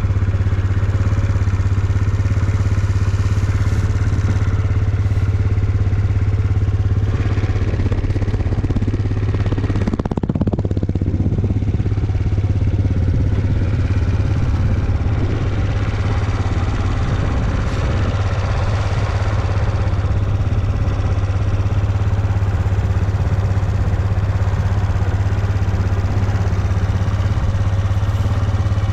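Suzuki Let's 4 scooter's 50cc four-stroke single-cylinder engine running steadily at idle, with a brief change in its sound about ten seconds in. The seller says it runs without abnormal noise now that its recall repair has been done.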